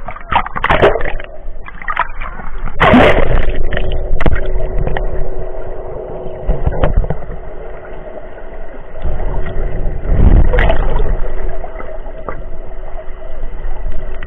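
Sea water sloshing and gurgling, heard muffled by a camera dipping under the surface, with louder surges about three seconds in and again past the middle. A steady low hum runs under the water noise from about three seconds on.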